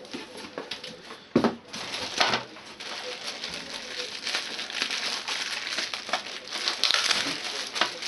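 Clear plastic bag crinkling as hands handle the bagged cables inside it, with a sharp knock about a second and a half in.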